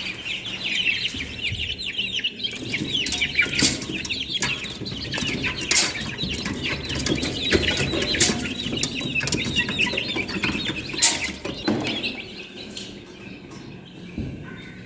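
Chickens clucking among a dense chorus of many small chirping calls, with scattered sharp clicks and knocks. It thins out about twelve seconds in.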